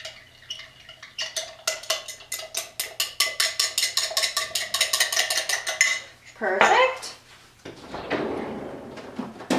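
Metal spoon stirring instant coffee and hot water in a glass mason jar: quick, even clinks against the glass, several a second, with a faint ring from the jar. The stirring stops about six seconds in.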